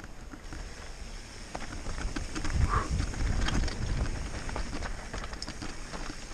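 Mountain bike descending a fast dirt trail: a heavy low rumble of tyres over packed dirt and loose stones, with scattered clicks and knocks as gravel strikes and the bike rattles.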